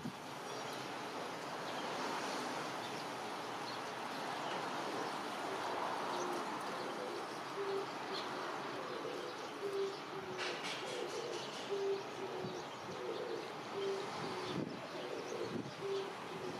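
A dove cooing: short, low coos repeated about once a second in a rhythmic phrase, over a steady hiss of wind.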